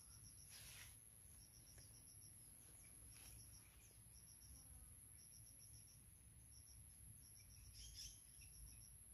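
Faint insects chirping in short trains of rapid high pulses that repeat every second or so, over a steady high whine, with a few soft rustles.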